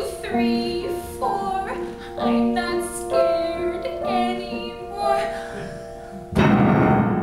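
A woman singing a show-tune solo over piano accompaniment, in held, pitched phrases; the music swells suddenly louder about six seconds in.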